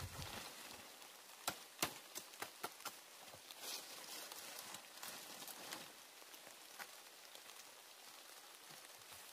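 Dry bamboo leaves and sticks rustling and crackling under a person crouching and crawling, with a run of sharp snaps and clicks between about one and a half and three seconds in.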